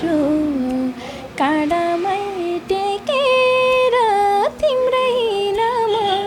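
A female voice singing a Nepali folk song in ornamented, wavering phrases, with one long held note about three seconds in.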